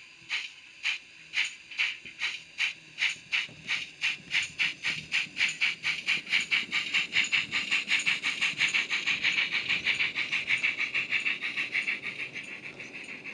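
Digital steam-locomotive sound from a LokSound 5 decoder playing through a model's small built-in speaker: a GWR 16XX pannier tank's exhaust beats, quickening from about two a second to four or five as the model locomotive accelerates away, with the drain-cock sound switched off. The beats turn softer near the end.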